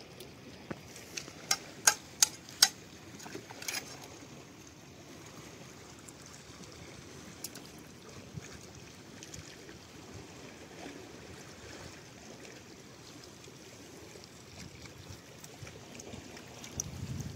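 Koyta (billhook) blade striking rock oysters to crack their shells open: four quick sharp cracks about a second and a half in and another about a second later. A faint steady trickle of running water continues underneath.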